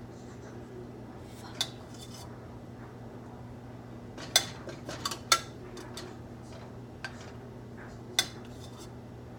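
Utensils and dishes clinking as cooked pasta is served out: about six sharp separate clinks, the loudest a little over four and five seconds in, over a steady low hum.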